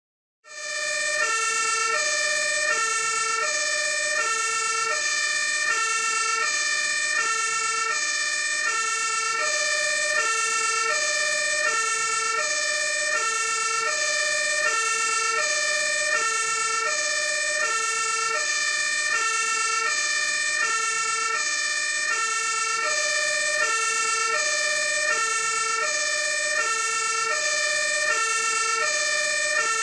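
Fire engine siren sounding a two-tone hi-lo pattern, switching back and forth between two notes in even steps about every three quarters of a second. It starts about half a second in and holds a steady level.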